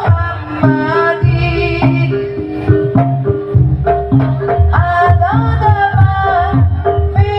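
Javanese jaranan (kuda lumping) ensemble music: hand-drum strokes and metallic gong-chime notes under a gliding melodic line.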